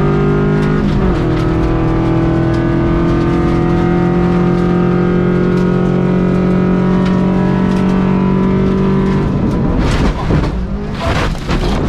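Rally car engine held at high revs over gravel, with a brief change in note about a second in. About nine seconds in the steady engine note breaks off and loud knocks and crashes follow as the car leaves the road at over 75 mph and starts to crash.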